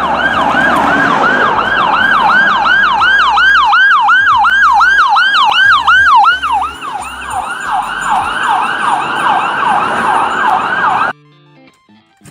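Ambulance siren in a fast yelp, rising and falling about three to four times a second. It cuts off suddenly near the end.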